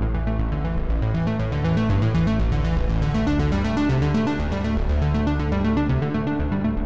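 Electronic background music with a steady beat and a stepping synth bass line.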